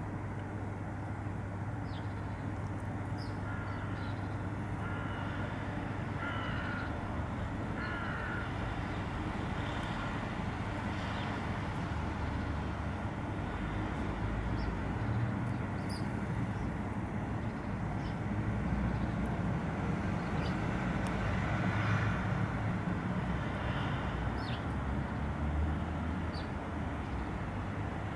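Crow calling: two harsh caws about six and eight seconds in, with scattered short high chirps from small birds, over a steady low rumble.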